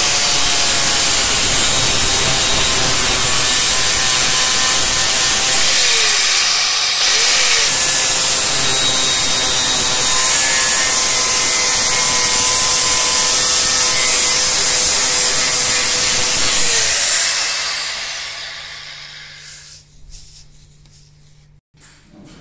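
Angle grinder with an abrasive flap disc grinding the steel of a knife blank made from a circular saw blade: a steady high whine over a harsh grinding noise, briefly changing pitch about seven seconds in. Near the end the grinder is switched off and its whine falls away as the disc spins down.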